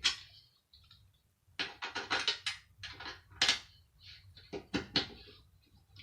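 Irregular knocks and clatter of a metal hand air dryer being handled, with a quick run of clicks about two seconds in and a few louder knocks later.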